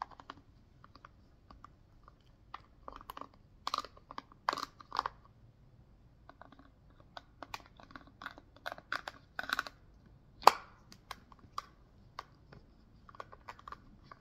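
Toy toothbrush scrubbing over a plastic model of teeth: irregular short scratchy strokes and light plastic clicks, with one sharp louder click about ten seconds in.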